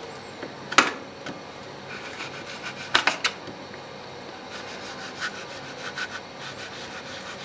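A long knife blade scraping repeatedly across a block of dark chocolate, shaving off curls: a run of short, dry scrapes, with a couple of sharper knocks about a second in and about three seconds in.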